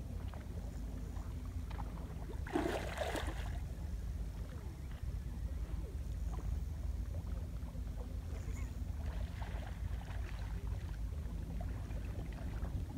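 Wind buffeting the microphone, a steady low rumble throughout, with one brief louder noise about two and a half seconds in.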